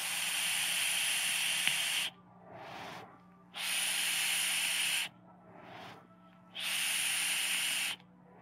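GeekVape Avocado 24 Genesis-style rebuildable atomizer with 0.25-ohm fused Clapton coils, fired at 100 watts: three hissing, sizzling draws of about one and a half to two seconds each, starting and stopping sharply, with softer breathy swells between them.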